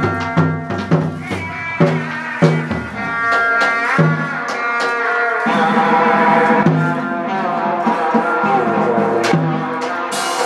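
Hát bội theatre ensemble music: drum strikes, several in quick succession in the first few seconds, under a bending, sustained melodic line.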